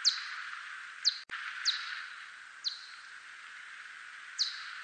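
Echolocation calls of a 대륙쇠큰수염박쥐, a whiskered Myotis bat: about six short, steeply falling chirps at irregular spacing over a steady hiss. A single sharp click cuts in a little over a second in.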